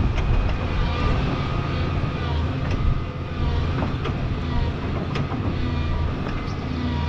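Volvo tracked excavator's diesel engine running while the boom and bucket work, a low rumble with a steady whine above it. Sharp clicks and knocks come now and then.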